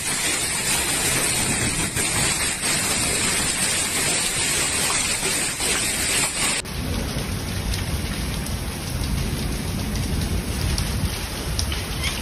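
Heavy rain pouring down in a thunderstorm, a dense, steady hiss. About six and a half seconds in it cuts abruptly to another recording of the downpour with a deeper low rumble.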